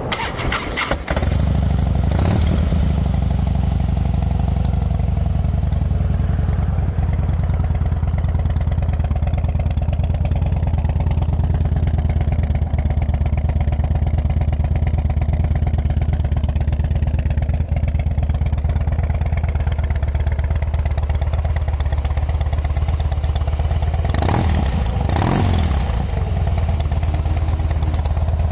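A 2009 Harley-Davidson Heritage Softail's fuel-injected 96-cubic-inch V-twin with upgraded exhaust catches about a second in and settles into a steady idle. Near the end the throttle is blipped twice in quick succession.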